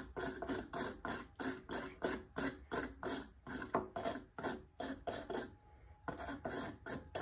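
A small brush scrubbing a chainsaw spark plug wet with Seafoam cleaner, in quick regular strokes about three a second, with a short pause about three-quarters of the way through.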